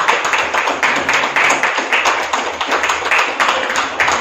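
Several people clapping quickly and continuously for a cake-cutting celebration.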